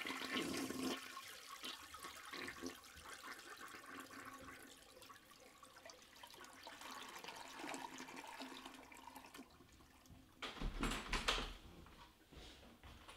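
A toilet flushing behind a closed bathroom door, the rush of water falling off into the faint steady hiss of the tank refilling. About ten and a half seconds in there is a brief louder rattle and thud as the bathroom door is unlatched and opened.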